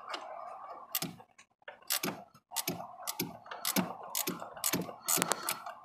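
Ratcheting wrench clicking as it is swung back and forth to work a fitting in the engine bay: a string of sharp clicks, about two a second and uneven, with a dull knock under some of them.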